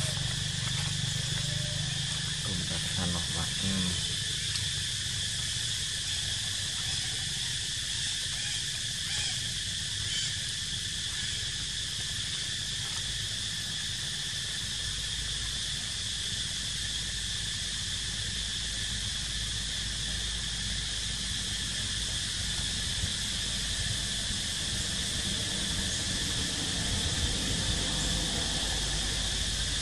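Steady drone of insects in the trees, with a low rumble underneath.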